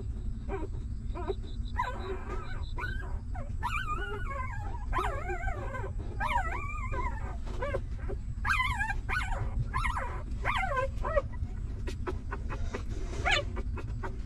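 Newborn puppies whimpering and squealing while nursing: many short, high, wavering cries, bunched between about two and eleven seconds in and once more near the end, over a steady low rumble.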